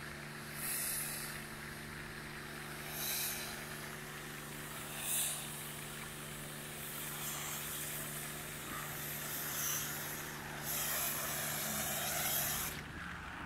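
Pressure washer spraying cleaning chemical: a steady machine hum with bursts of spray hiss every couple of seconds, the longest lasting about two seconds near the end.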